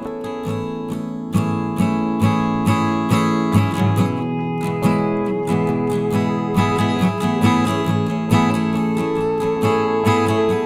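Background music: acoustic guitar strumming chords at a steady rhythm, about two strums a second.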